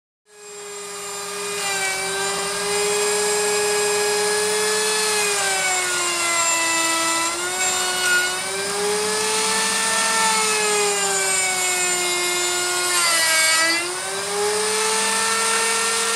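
Lathe motor running, spinning a home-made eccentric chuck built from a pipe floor flange, with a steady whine whose pitch sags and recovers several times.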